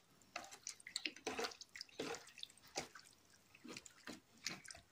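Deboned chicken thighs being squeezed and rubbed by hand in a bowl of liquid marinade: faint, irregular wet squishes and splats, two or three a second.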